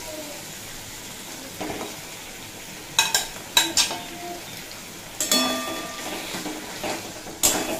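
Marinated chicken pieces frying in oil in a metal kadai with a faint steady sizzle, then a metal spatula stirring them, scraping and clanking against the pan several times from about three seconds in.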